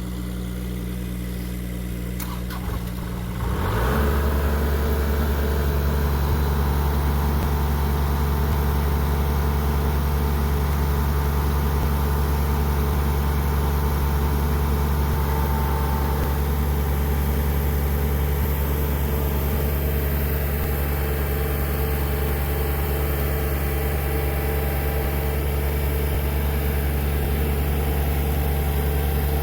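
A machine engine running steadily. About four seconds in it picks up to a louder, higher-speed drone and holds there.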